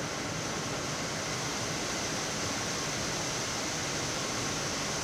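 Steady rushing noise on a Boeing 787 Dreamliner's flight deck on final approach: airflow and air-conditioning hiss, even and unbroken.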